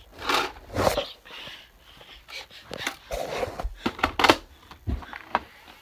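Plastic Nerf blaster parts being rummaged through and handled: a string of irregular clicks and clatters with short rustles.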